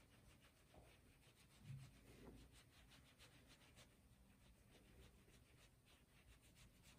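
Near silence, with faint repeated rubbing strokes of hands kneading skin during a massage.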